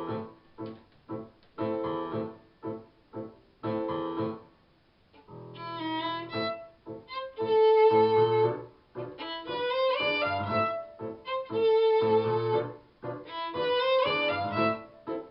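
Piano plays short detached chords, then a violin melody of long held notes comes in about five seconds in over the piano accompaniment.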